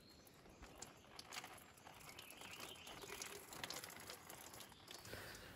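Near silence: faint outdoor room tone with a few soft crackles.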